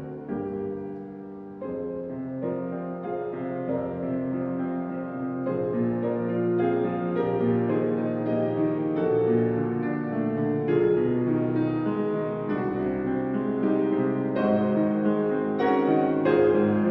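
Steinway grand piano playing a flowing late-Romantic solo piece, with overlapping sustained chords and a melody that grows gradually louder.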